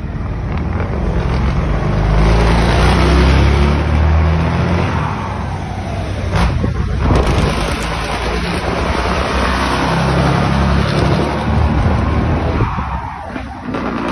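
Scania 113 truck's straight-six diesel running as it drives alongside, mixed with loud road and wind noise. The sound dips briefly twice, about halfway through and again near the end.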